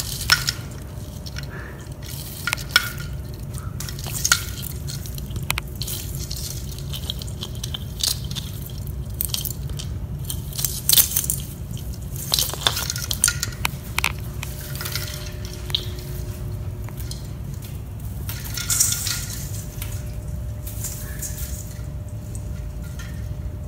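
Artificial Christmas tree branches rustling and ornaments clinking lightly as a kitten clambers about inside the tree: a scatter of sharp clicks and short rustles over a steady low hum.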